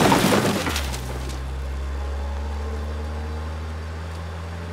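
A cardboard box and its contents hitting the pavement with a shattering crash, then a small car's engine running steadily as the car drives away.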